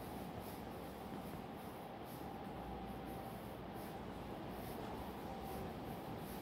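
Quiet room tone of a large, nearly empty station hall: an even hiss with a faint steady tone underneath, and no distinct events.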